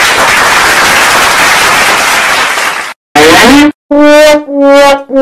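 A loud, rushing noise that cuts off abruptly about three seconds in, followed by a run of short horn-like blasts on one steady pitch.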